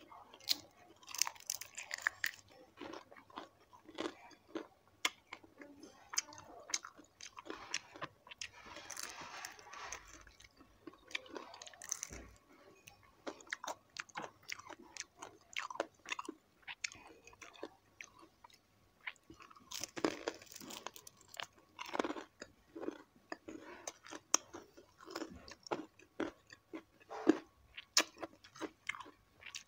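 Close-miked chewing of crispy deep-fried chicken feet: irregular crunching crackles and wet mouth sounds as the fried skin breaks between the teeth.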